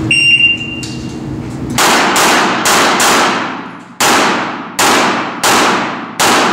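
Electronic shot-timer start beep, a steady high tone lasting about a second, then a string of about seven shots from a CZ75 SP-01 Shadow 9×19 mm pistol starting under two seconds in, each ringing on in a long echo in the range hall.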